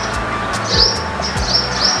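Small songbirds chirping: short high chirps, each with a quick pitch dip, repeated about twice a second.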